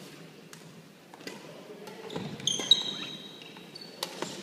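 Badminton rally: rackets striking the shuttlecock several times, the loudest hit midway and a jump smash near the end. Shoes squeak in short high tones on the wooden court floor in the middle of the rally.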